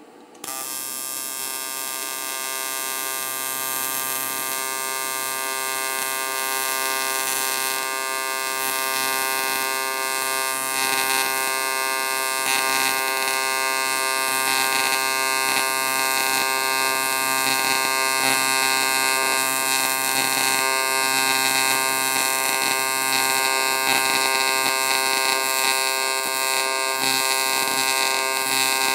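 AC TIG welding arc set to 120 Hz with 73% electrode-negative balance, struck just after the start and buzzing steadily as a puddle is run across aluminum and stainless steel with 4043 aluminum filler. The buzz grows slightly louder over the first few seconds, then holds.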